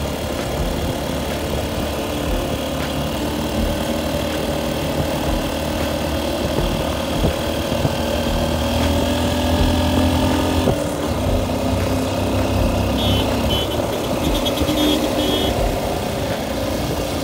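Motorcycle engine running at road speed, with wind and road noise on the microphone. A car passes close and the sound swells about nine to ten seconds in. A run of short high beeps follows a few seconds later.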